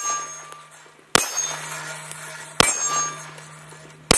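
Three handgun shots about a second and a half apart, each followed by the ringing clang of a steel silhouette target being hit; the last shot comes near the end.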